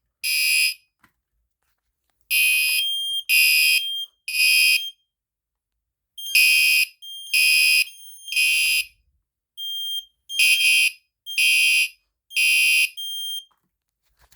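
Fire alarm horn, a Gentex Commander 3, sounding loud half-second blasts in a temporal-three pattern: three blasts, a pause, then three more. Smoke alarms beep out of step with it at a higher, purer pitch, set off by the pulled fire alarm pull station.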